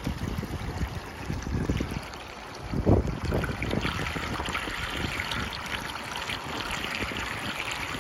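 Water running and trickling along a rain gutter flooded by leaves clogging it, the trickle growing stronger in the second half. Wind rumbles on the microphone in gusts, strongest about three seconds in.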